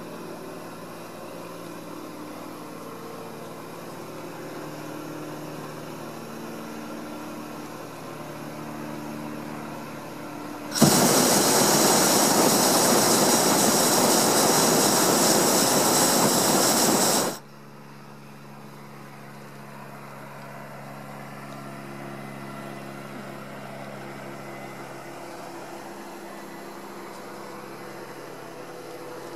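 Hot-air balloon's propane burner firing once: a loud, even roar that starts abruptly about eleven seconds in and cuts off just as abruptly some six seconds later. A faint steady hum lies under the quieter stretches either side.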